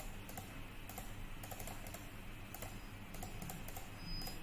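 Light, irregular clicking of computer input as numbers are entered into a program, over a faint steady hum.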